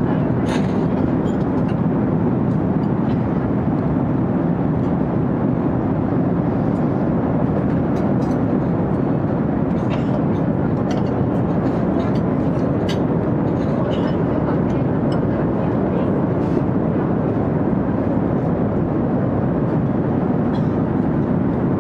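Airport ambience: a loud, steady low rumble of machinery and traffic noise with faint scattered clicks and ticks.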